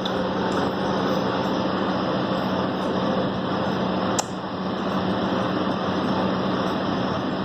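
Steady mechanical hum and hiss, like a fan or air conditioner running, with one short sharp click a little past halfway.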